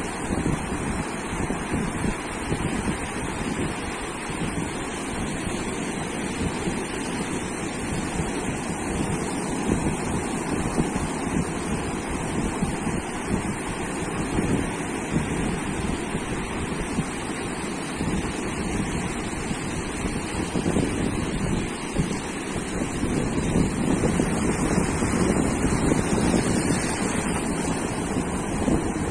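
Ocean waves breaking and washing up on a sandy beach, a steady surf rumble with slow swells, with wind buffeting the microphone.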